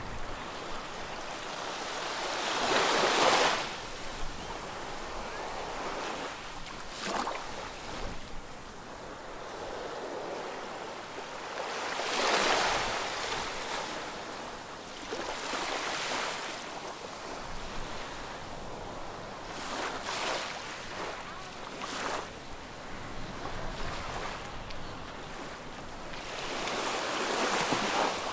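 Small sea waves breaking and washing up the beach. Three larger washes, a few seconds in, near the middle and near the end, with smaller splashes between.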